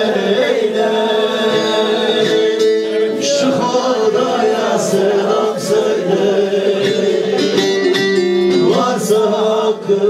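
A man sings a Turkish folk song in long, wavering held notes, accompanied by a strummed bağlama (saz).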